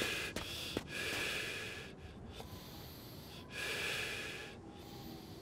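A person breathing heavily after running: slow, loud breaths about a second each, a couple of seconds apart, with two footfalls in snow in the first second.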